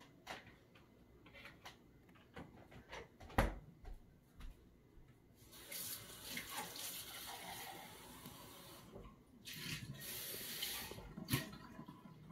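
Water running in two spells, each a few seconds long, the second shorter, with scattered clicks and light knocks before and between them, one sharper knock among them.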